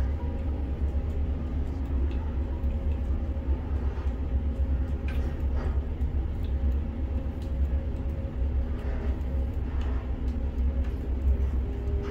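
Steady low mechanical rumble of a ship-to-shore container crane working, heard from inside the operator's cab as the trolley and hoist move a suspended container load, with a few faint clicks.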